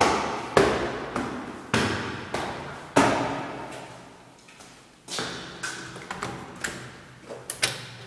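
Footsteps climbing hard stairs in sandals: a steady run of sharp steps about 0.6 seconds apart, each ringing on in the echoing stairwell. Lighter clicks and taps follow in the last few seconds.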